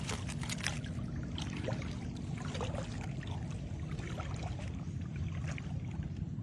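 Shallow seawater sloshing and splashing around a person's legs as he wades, with scattered small splashes over a steady low rumble.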